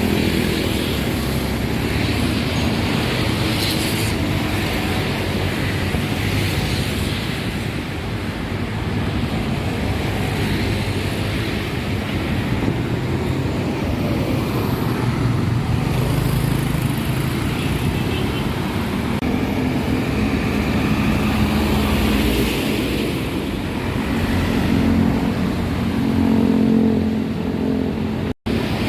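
Highway traffic passing: buses and other vehicles driving by with steady engine and tyre noise. The sound cuts out for an instant near the end.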